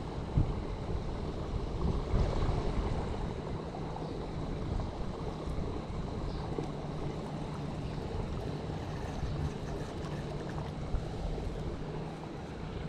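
Wind buffeting the microphone: an uneven low rumble with stronger gusts in the first couple of seconds, over a steady outdoor hiss.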